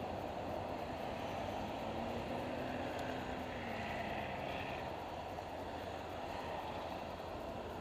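Steady rumble of city traffic, cars driving through the intersection.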